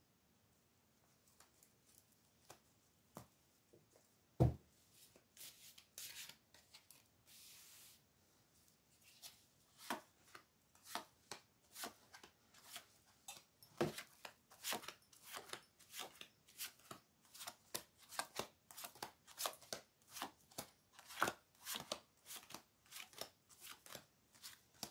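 Tarot cards being shuffled by hand: a run of short card taps and slaps, sparse at first, then two or three a second from about nine seconds in, with one louder thump about four seconds in.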